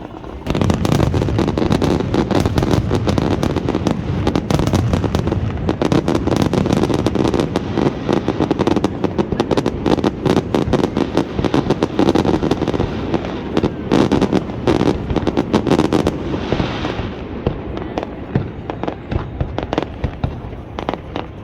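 Fireworks display: a sudden, dense barrage of bangs and crackling starts about half a second in and keeps up heavily, then thins after about sixteen seconds to scattered pops and crackles.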